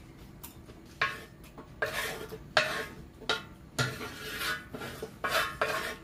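Wooden spatulas scraping and scooping leftover pad thai off a large black griddle pan, a series of short scraping strokes about once a second.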